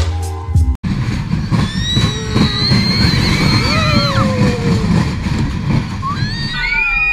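Amusement-park ride and crowd noise: a steady low rumble with high-pitched squeals gliding over it, starting about a second in. It follows the end of a music intro.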